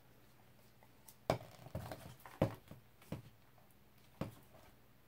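About five soft, irregular knocks and bumps as a canvas carrying two upturned paint cups is shifted and set down on a tray.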